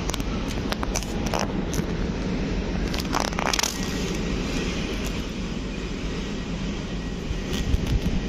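Railway station ambience: a steady low rumble mixed with wind noise on the microphone. Bursts of sharp clicks and crackles come about a second in and again around three seconds in.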